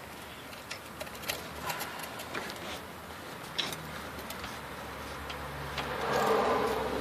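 Scattered light clicks and taps as a replacement distributor is handled and worked into place in a Volkswagen Vanagon engine, with a short scraping rub about six seconds in.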